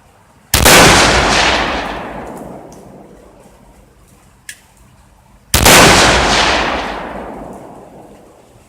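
Tokarev SVT-40 semi-automatic rifle firing two rounds of 7.62×54R, about five seconds apart. Each loud shot is followed by a long echo that dies away over two to three seconds.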